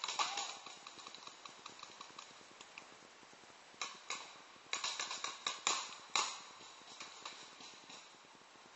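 Paintball markers firing: sharp pops, one right at the start, a couple about four seconds in, then a quick volley of shots about five to six seconds in.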